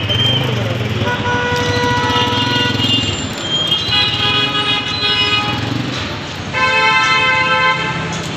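Street traffic: engines running, with vehicle horns honking in several long, steady blasts, the loudest near the end.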